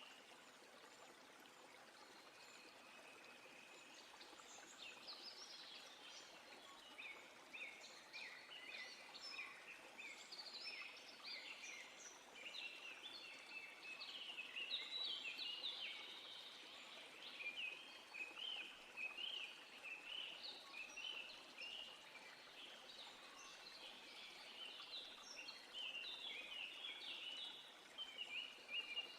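Birds singing, a dense run of short chirps and trills from several birds, faint, over a soft steady hiss.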